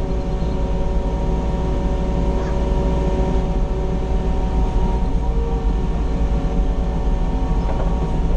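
Mini excavator's diesel engine running at a steady speed, heard from inside the closed cab.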